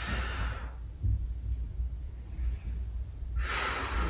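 A man breathing deeply while holding a stretch: a long breath at the start and a louder one a little before the end, over a low steady hum.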